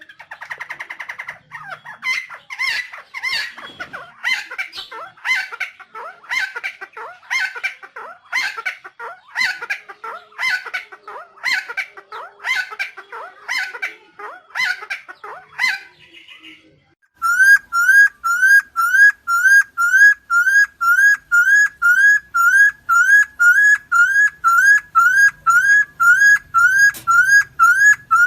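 Helmeted friarbird calling: a fast series of harsh, repeated notes, then, after a short break a little past halfway, a loud, very regular run of identical rising whistled notes about two a second.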